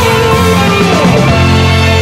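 Progressive rock recording from 1974: a full band with guitar and bass holding sustained notes, one note gliding downward about a second in.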